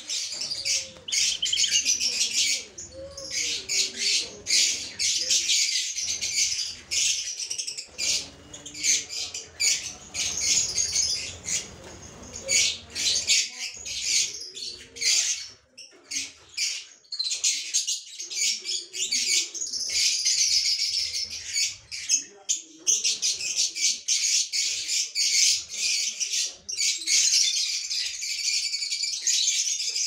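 A flock of aviary lovebirds calling all at once: a dense, continuous stream of high, shrill chirps and chatter.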